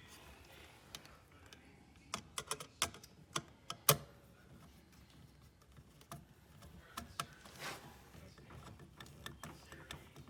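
Irregular small sharp clicks and taps of hand work on a dishwasher's electrical box, the ground wire being fastened to its bolt. They are bunched about two to four seconds in, with the loudest near four seconds, and a few faint clicks follow.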